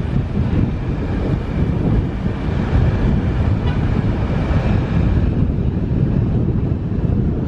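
Wind buffeting the microphone over the steady rumble of a car driving along a city street.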